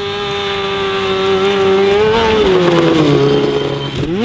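Snowmobile engine running at high revs, growing louder; about two seconds in its pitch rises briefly and then falls, and just before the end it revs up sharply and cuts off suddenly.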